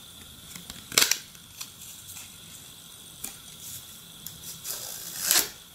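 Parts of a phone bumper frame being handled and fitted: one sharp click about a second in, a few lighter clicks, then a longer scraping rub near the end.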